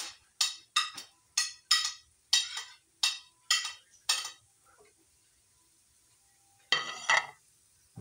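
A utensil scraping and tapping against a plate about ten times in quick succession as sliced chayote is pushed off it into a pan, then a short clatter near the end.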